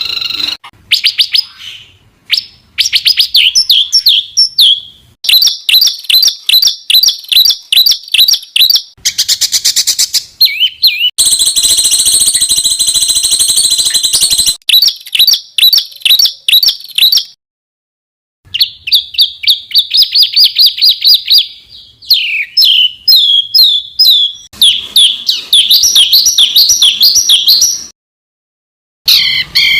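Spliced recordings of songbird song: rapid series of sharp repeated chirps and whistled notes, with a sustained harsh buzzing call in the middle. The clips change abruptly, with two short silent gaps between them.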